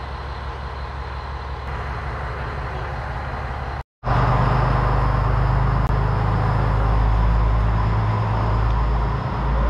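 Single-car JR KiHa 100 series diesel railcar standing at the platform, its diesel engine running with a steady low hum. A short break about four seconds in, after which the hum is louder.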